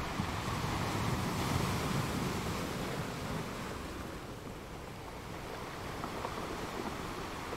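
Steady rushing noise with no distinct events, swelling over the first two seconds and easing off a little after about four.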